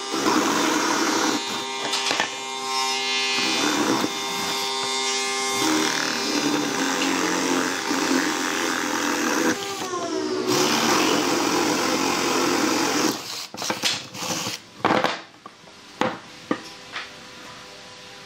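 Cordless drill boring holes through a pine board with Forstner and spade bits: a steady motor whine over the chewing of the cut, with the motor winding down and starting again near the middle. After about 13 seconds the drilling stops, leaving scattered knocks of wood handled on the bench.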